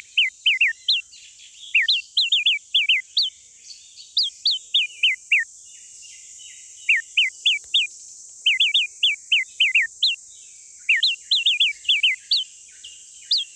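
A small bird calling: fast runs of short, sharp chirps, each sliding down in pitch, with a pause of a second or so about halfway through. A steady high hiss sits underneath.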